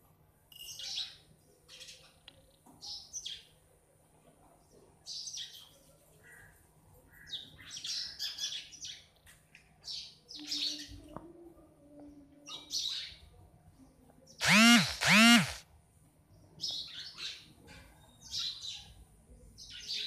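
House sparrows chirping in short bursts of rapid chirps, again and again throughout. A little past halfway, two loud, drawn-out calls, each rising then falling in pitch, break in over the chirping.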